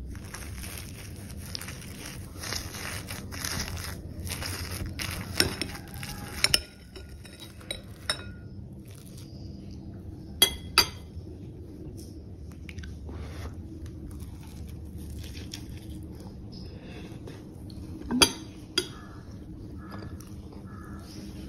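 Metal spoon and fork scraping and clinking against a ceramic plate while cutting into an omelette. Scraping for the first several seconds, then a handful of separate sharp clinks, the loudest about two thirds of the way through.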